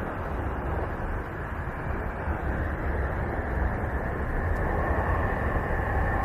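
Space sound presented as the sound of the planet Uranus: a steady, noisy drone with a deep rumble underneath, slowly growing louder. About two-thirds of the way through, two faint steady tones come in above the noise.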